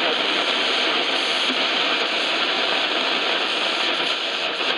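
Sony ICF-6800W shortwave receiver hissing with loud, steady static between stations while the tuning knob sweeps across the shortwave band.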